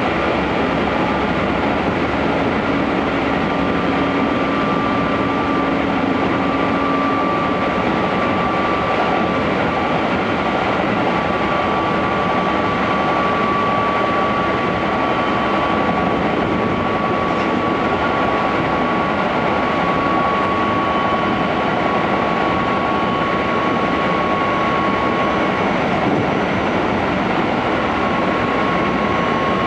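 Keikyu 600 series electric train at speed, heard inside the carriage: the steady rumble and rush of the train running on the rails, with a thin high whine that drifts slightly lower in pitch.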